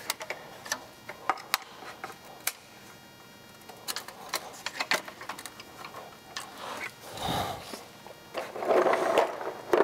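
Hand tools and fasteners working under a truck's front end: scattered sharp clicks and taps at an uneven pace, then a couple of short scraping or rustling noises near the end as parts are handled.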